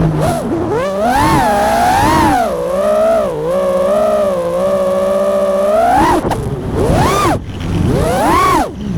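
FPV quadcopter's brushless motors whining, the pitch sweeping up and down with the throttle. The pitch holds fairly steady for a few seconds in the middle, then drops and shoots back up several times near the end.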